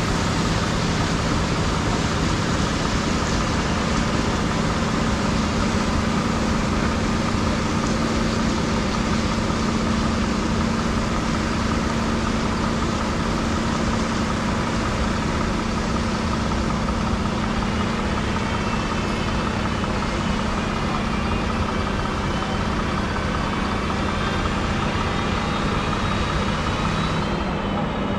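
Large harvest machinery running steadily: a diesel engine's drone with a strong low hum under a broad rush of mechanical noise. A faint high whine joins in the second half.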